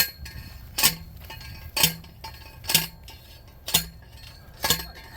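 Evenly paced metal-on-metal strikes, about one a second, each with a short ringing tail, like steady hammer blows on a metal part of the mortar setup.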